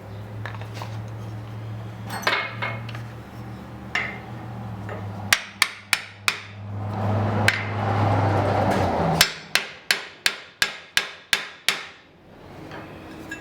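Blacksmith's hammer striking steel on an anvil while forging an axe: a few scattered ringing blows, then a quick run of about eight blows, roughly three a second, near the end. A steady low hum runs underneath and cuts off just before the quick run.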